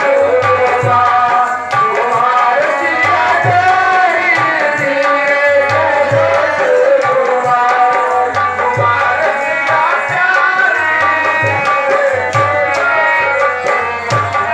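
Live stage music: a hand drum beating a steady rhythm under a wavering melodic line.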